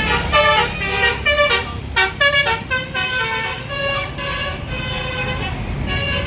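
Tour bus's 'telolet basuri' musical horn playing a tune of quick stepped notes, busiest in the first two and a half seconds, then longer held notes, with traffic rumbling underneath.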